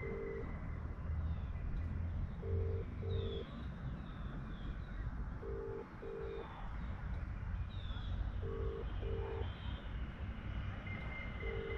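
Telephone ringback tone of the Indian kind: a low double beep repeating every three seconds while a phone call rings out, with birds chirping over a low rumble in the background.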